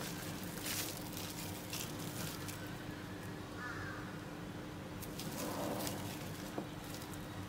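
Cling film crinkling faintly now and then as hands press it down tight over a bowl, with a few soft clicks over a steady faint hum.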